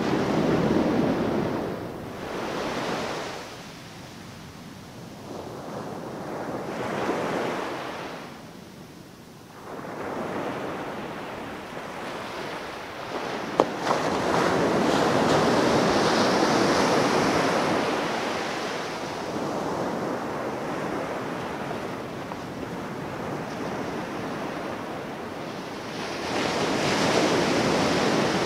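Ocean surf breaking on a beach, waves surging in and washing back several times, with one long surge in the middle. A single sharp click sounds about halfway through.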